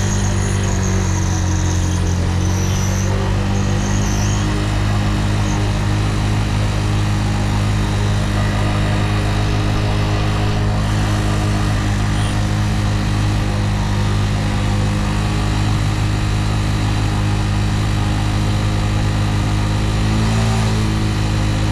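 Motorcycle engine idling steadily with a low hum. Its pitch sags a little early on and rises slightly near the end.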